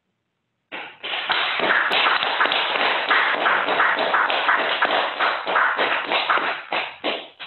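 Applause from video-call participants, heard through the call's audio. It starts about a second in and runs as a dense patter of claps until just before the end.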